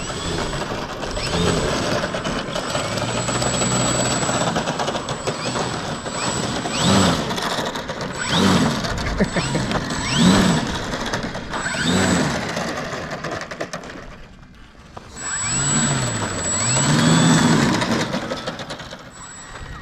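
Electric RC model airplane's motor and propeller whining overhead, the pitch sweeping up and down over and over as the plane passes and manoeuvres. It fades briefly about three-quarters of the way through.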